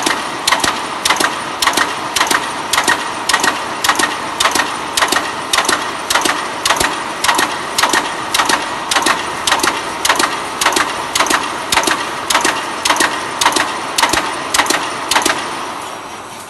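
Automatic 3D panel fence spot welding machine cycling, with a sharp mechanical clack about twice a second over a steady machine background. The strokes stop about a second before the end.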